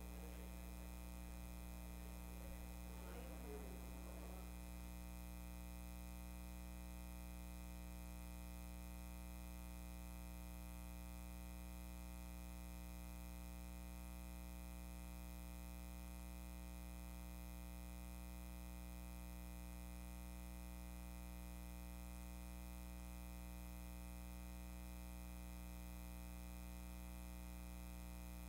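Low, steady electrical hum with many overtones and a faint hiss, with no music or speech. A faint, brief wavering sound comes about two to four seconds in.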